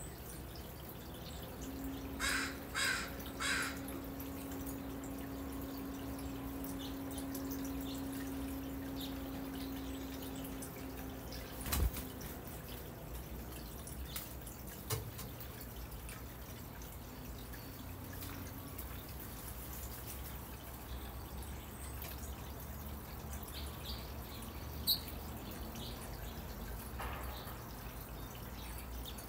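Northwestern crow cawing three times in quick succession about two seconds in, then a few scattered sharp knocks and taps as crows land and peck at food in a ceramic bowl. A steady low hum sits underneath for the first ten seconds or so.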